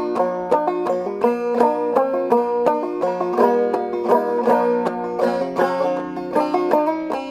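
Five-string banjo played clawhammer style in double C tuning lowered to double B-flat: an instrumental break of quick, evenly picked notes over a droning ring.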